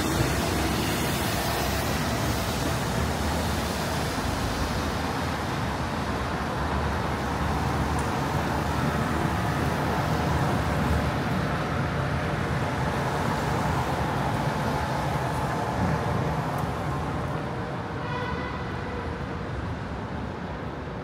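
City street traffic on wet pavement: a steady wash of passing cars and buses that eases off in the last few seconds, with a brief high pitched tone near the end.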